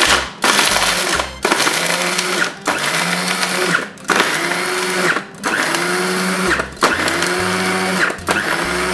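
Girmi electric mini chopper pulsed by pressing down on its lid, chopping amaretti biscuits, almonds and chocolate: a run of motor bursts about a second long with brief pauses between, the motor whine rising as it spins up each time.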